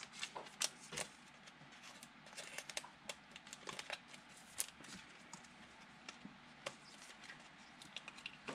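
Faint, irregular clicking and tapping of a computer keyboard, with uneven gaps between the keystrokes.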